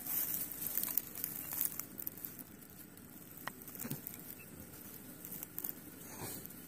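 Light rustling and crinkling with scattered small clicks and taps, busiest in the first two seconds.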